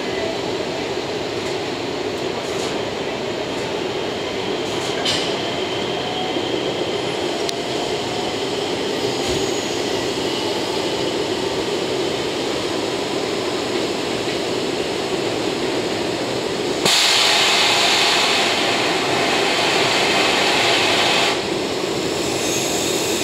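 EF67 electric locomotive moving slowly on depot tracks, a steady rumble of wheels and running gear. About three-quarters of the way through, a loud hiss starts abruptly, lasts about four seconds and cuts off sharply.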